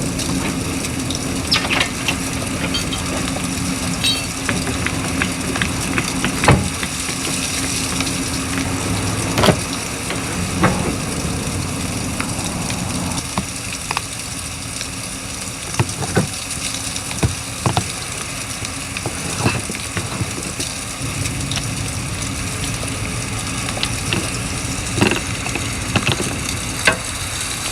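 Steady hiss of wind and blowing snow with a low hum underneath, broken by scattered clicks and knocks.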